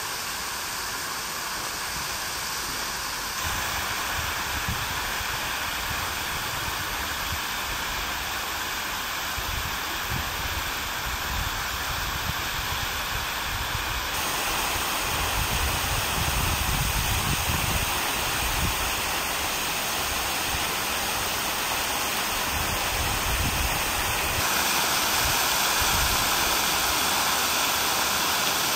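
Steady rush of water falling and splashing from fountains into a basin. It shifts abruptly in level and tone about three seconds in, midway, and again near the end, with a low rumble under it through the middle.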